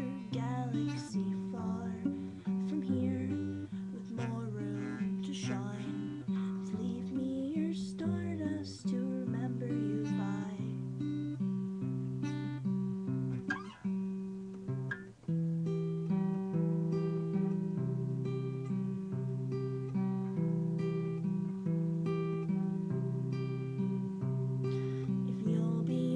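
Acoustic guitar strummed and picked, its chords changing about once a second in a steady rhythm.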